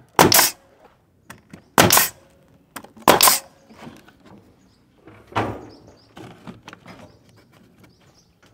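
Pneumatic nail gun firing nails into a trim board: four shots, each a sharp bang with a short burst of air, about one to two seconds apart, the last one softer.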